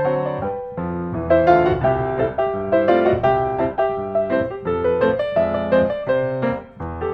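Background piano music, notes changing at a moderate pace over a low bass line.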